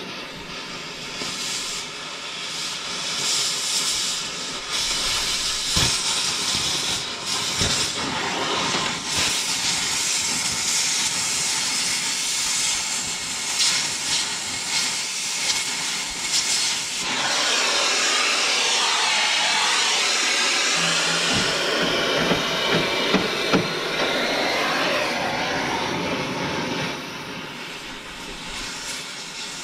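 Oxy-acetylene cutting torch hissing steadily as it burns through steel on a round baler's pickup, with a couple of sharp pops a few seconds in. The hiss changes character about halfway through.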